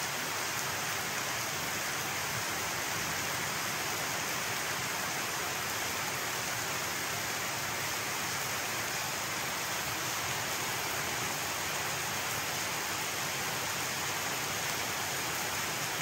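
Steady, even hiss of water that does not change.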